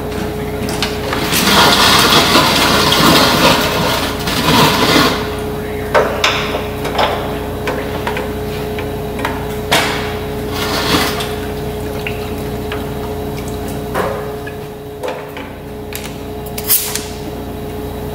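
Workshop handling noises: knocks and clatters as a coolant tube and a plastic bucket are handled, over a steady hum. A rushing hiss of liquid or air lasts a few seconds near the start.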